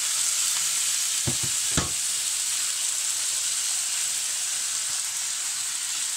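Chicken leg quarters sizzling steadily in a nonstick double-sided grill pan over medium-high heat, with two soft knocks about a second and a half in.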